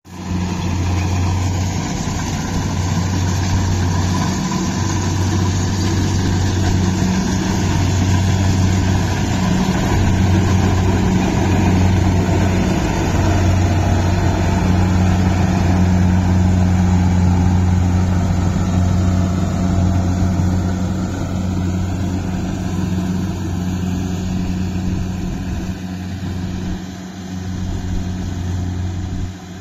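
Kubota DC-68G Harvesking crawler combine harvester running steadily while cutting rice: a continuous low diesel hum with machinery noise over it. It grows somewhat quieter near the end as the machine moves away.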